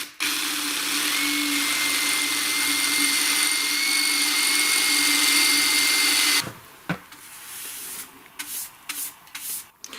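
Electric drill running steadily for about six seconds, boring an oversized hole for the damper handle rod, then stopping; a few light clicks and knocks follow.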